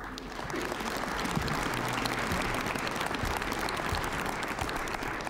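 Audience applauding in a large hall, a steady dense clapping that begins at once and eases off near the end.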